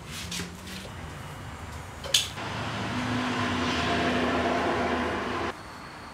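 A sharp click, then a power tool runs with a steady hum for about three seconds and cuts off suddenly.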